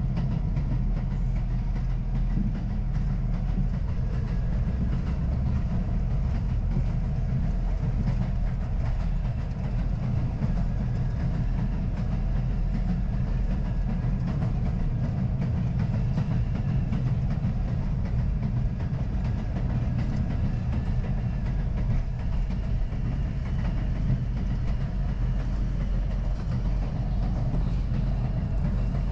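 R62A subway train running at speed, heard from inside the front car: a steady rumble of wheels on rail and traction motors, with a faint motor whine above it.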